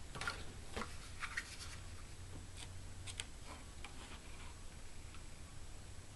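Faint scattered clicks and light rustles as a small plastic handheld hole punch is handled and fitted over the edge of a thin paper card, over a low steady hum.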